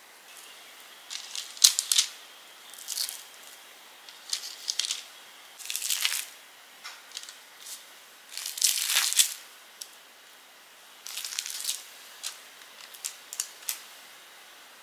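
Plastic bag and parchment paper crinkling in short separate bursts, with a sharp click near the start, as pumpkin cookie dough is squeezed out and dropped onto a paper-lined plate.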